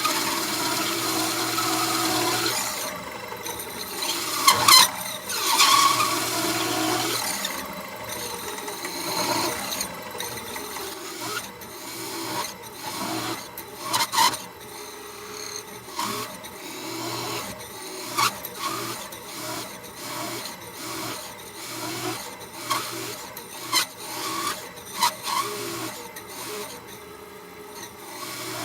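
Hole saw cutting into aluminum bar stock, a rough squealing cut that is loudest in the first several seconds. After that it runs lighter and stops and starts, with sharp knocks now and then as the grabby aluminum chips are cleared.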